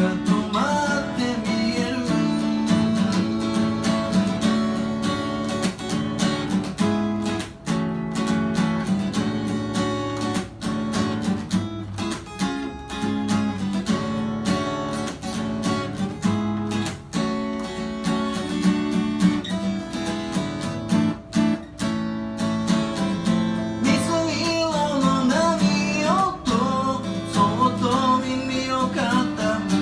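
Instrumental break of a song: acoustic guitar strumming steady chords, with a melody line sliding between notes near the end.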